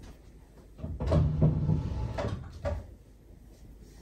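A wooden chair scraped and knocked as someone sits down at a table: a low scrape with three knocks, loudest about a second in and dying away before the end.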